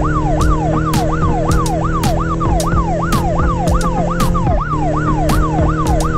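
A police-style yelp siren, its pitch sweeping fast and falling about three times a second, over background music with held chords and a steady beat.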